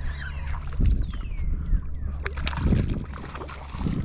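Water splashing and sloshing with several low knocks against a kayak as a hooked small fish is brought alongside, over a steady low hum.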